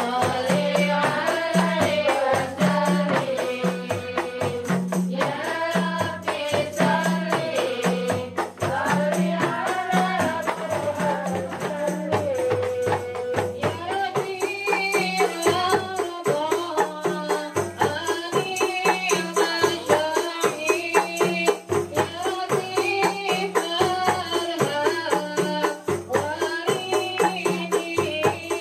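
Women singing an Islamic devotional song (sholawat), a lead voice on a microphone, over rebana frame drums and jingle tambourines beating a steady repeating rhythm. About halfway through the melody moves higher and the drum pattern shifts.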